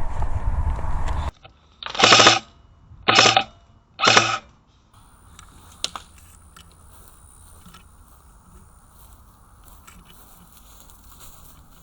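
Three short bursts of airsoft rifle fire, about a second apart, each lasting about half a second. Before them, loud movement noise stops abruptly about a second in; after them only a low hiss remains, with one click.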